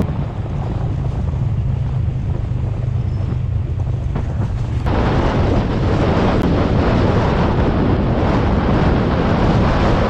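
Wind buffeting a GoPro's microphone on a moving motorbike, a steady rush with the bike's running and road noise underneath. About five seconds in the rush gets louder and brighter.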